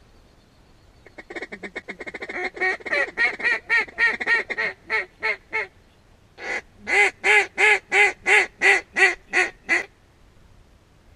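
Duck quacking in two runs. First a fast chattering string of quacks that spreads out and slows. Then, after a short pause, a run of about ten loud, evenly spaced quacks.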